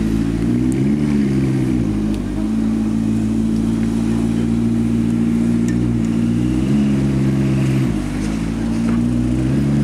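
McLaren P1's twin-turbocharged V8 idling, blipped a few times so the pitch swings up and back down, about a second in and again near the end.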